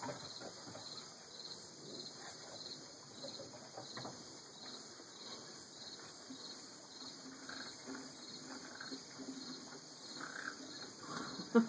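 Faint, steady chirping of insects, an even pulse of about three chirps a second.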